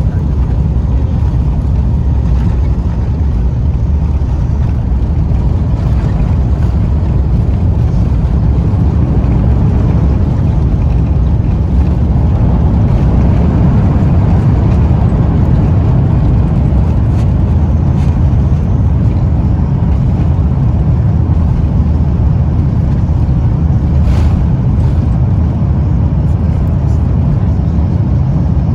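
Steady low rumble inside an Airbus A350's cabin on final approach: engine and airflow noise, slightly louder in the middle.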